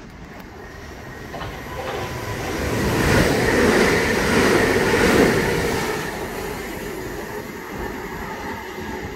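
Passenger train passing at speed: the rush of wheels on rail builds to its loudest about midway, as the carriages go by, then fades as the train pulls away, with a steady whine underneath.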